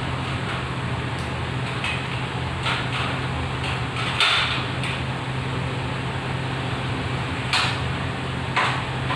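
Irregular short knocks and scrapes of a hand tool working at a ceiling-mounted fluorescent light fixture, about eight in all, the loudest about four seconds in, over a steady low hum.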